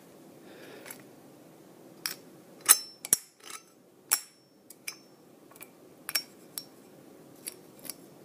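Small metal screws and a screwdriver clicking and clinking, a dozen or so sharp taps, a few of them ringing briefly, the loudest a little under three seconds in.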